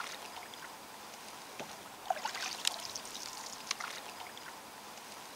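Faint water lapping and trickling against a canoe hull, with a few small drips and ticks in the middle.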